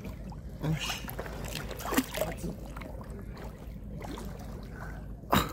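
Water sloshing and splashing around people moving in deep water, with a few short, sharper splashes; the loudest comes near the end.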